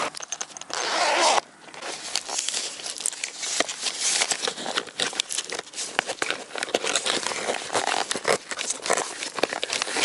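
Close crinkling and crackling of something being handled. It comes after a short rushing noise that cuts off about a second and a half in.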